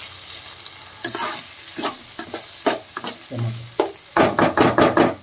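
Slotted metal spatula scraping and tossing onions and green chillies frying in oil in a wok-style pan, over a steady sizzle. The strokes come about once a second at first, then a quick run of scrapes near the end.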